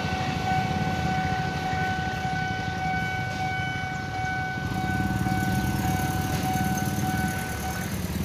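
Level-crossing warning alarm sounding a steady electronic tone that breaks off near the end, over the low rumble of motorcycle engines idling at the closed crossing.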